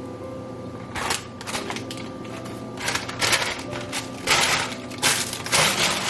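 A series of about six short, noisy crunching scrapes from kitchen work at the stove, over quiet background music.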